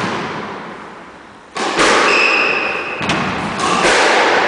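Squash ball struck by rackets and hitting the court walls, three sharp knocks that ring out in the enclosed court, with brief squeaks of shoes on the wooden floor.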